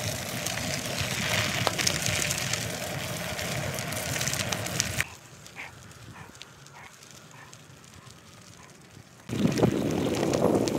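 Bicycle tyres rolling over a gravel trail with a crackle of stones, mixed with wind on the microphone. The sound drops off suddenly about five seconds in, then returns near the end as a loud wind rumble over the tyre noise.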